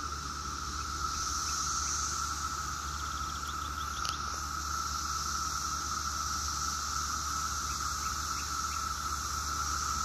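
Chorus of many cicadas singing together: a steady, unbroken drone with a fainter, higher hiss above it.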